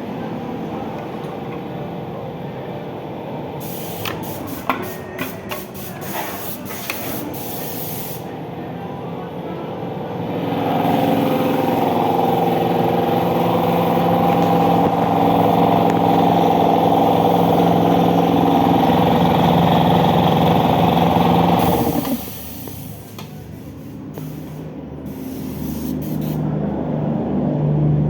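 Electric air compressor: a run of sharp clicks, then the motor and pump start about ten seconds in and run steadily and loudly before cutting off abruptly, followed by a quieter hiss of air that builds again near the end.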